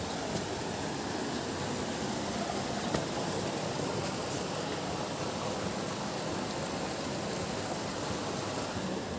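Steady rush of river water flowing among large boulders, an even hiss and rumble without any break.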